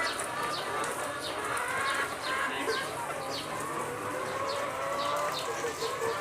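A flock of chickens calling: many overlapping calls, with short falling high chirps repeating about twice a second.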